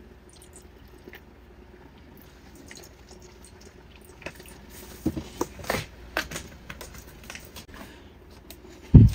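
Goat milk pouring from a plastic gallon jug into a bowl of puppy mush, a quiet liquid splashing. About halfway through come a few sharp knocks and taps as the jug and a plastic cup are handled on the counter.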